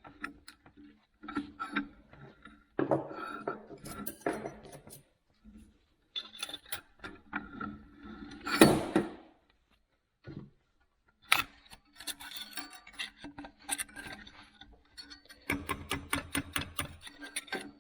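Steel parts of a Record No. 6 bench vise's screw assembly clinking and knocking as they are handled and worked, with one louder knock about halfway through and a quick run of clicks near the end.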